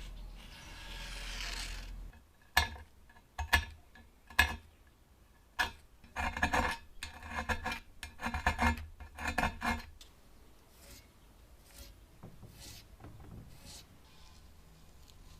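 A short stretch of rubbing or scraping, then hard knocks and clatter: a few single sharp knocks, followed by a dense run of clattering from about six to ten seconds in, then only faint ticks near the end.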